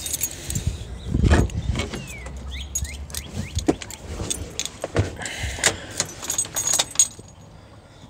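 A bunch of keys jangling and clicking as someone opens a pickup truck's door, climbs into the cab and reaches for the ignition. A dull thump about a second in is the loudest sound. The engine is not yet running.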